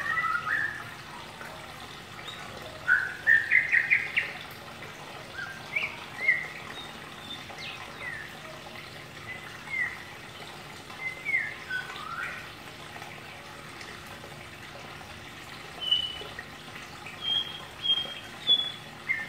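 White-rumped shama calling in ngeriwik fashion: scattered short chirps and brief whistled notes with gaps between them, with a quick run of rising notes about three seconds in and a few short high whistles near the end.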